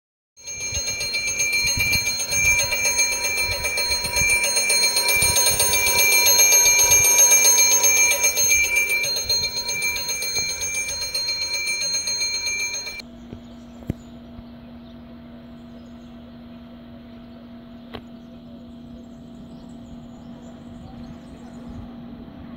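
Electric railway warning bell ringing rapidly and without a break, warning of an approaching train. It cuts off abruptly about thirteen seconds in, leaving a faint steady hum.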